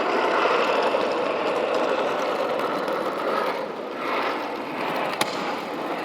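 CNC-machined metal skateboard wheels rolling on hard ground: a loud, steady, harsh rolling noise that swells and eases a little, with one sharp click about five seconds in.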